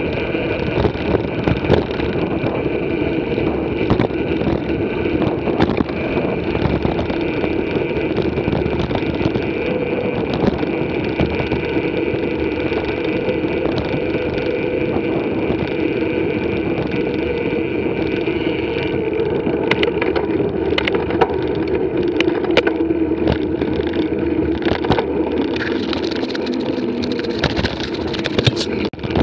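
Mountain bike rolling along a gravel track: a steady rumble of knobby tyres on loose gravel, with scattered clicks and rattles. The clatter gets busier near the end.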